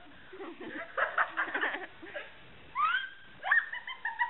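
Two girls giggling and laughing, with a high rising squeal about three seconds in.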